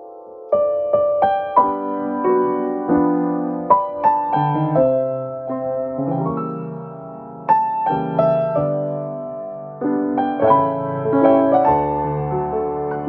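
A slow chime melody in piano-like tones: single struck notes and chords that ring on, over a line of low bass notes. It starts about half a second in, after an earlier chord fades.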